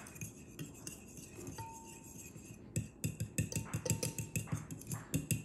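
Metal fork whisking a liquid marinade in a glass dish, its tines clinking and scraping against the glass. Soft and scattered at first, then from about three seconds in a fast run of clinks, several a second.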